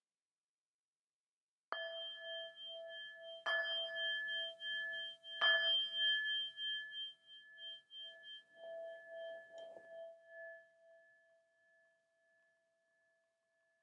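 Singing bowl struck three times, about two seconds apart, each strike adding to a bright ring that pulses slowly and fades away over several seconds; struck to open the silent sitting period.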